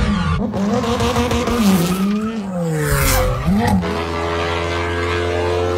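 Race car engine revving, its pitch rising and falling repeatedly, with a rush of noise around three seconds in. Just before four seconds in it gives way to a steady, even engine drone.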